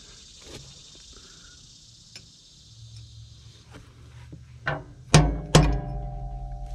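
Hammer striking metal while working the drive coupling (shear tube) of a Massey Ferguson 135 tractor. A light tap comes about half a second in, then three hard blows near the end about half a second apart. The last blow is followed by a ringing tone.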